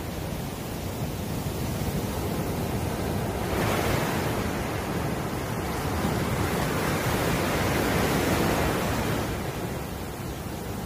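Ocean surf breaking and washing up a sandy beach, a continuous rushing wash that swells about a third of the way in and eases again near the end.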